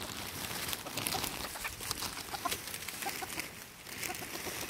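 A flock of chickens clucking softly as they peck at thrown marshmallows, with short clucks scattered throughout and many brief ticks and rustles.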